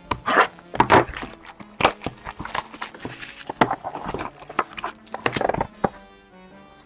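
A sealed trading-card box and its wrapping being opened and handled by hand: a busy run of cardboard clicks, taps, scrapes and crinkly rustling that dies down near the end. Faint background music plays underneath.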